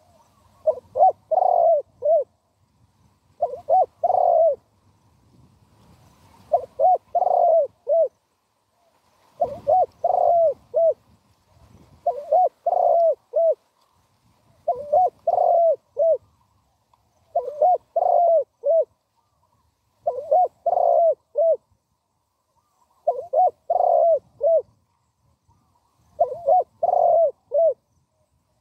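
Spotted dove cooing in short phrases of three or four coos, about ten phrases, one every two and a half to three seconds.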